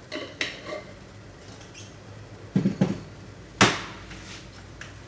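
Kitchen handling noises off to the side of the stove: a few light clicks near the start, two dull thumps about two and a half seconds in, then a sharp knock, the loudest, about a second later.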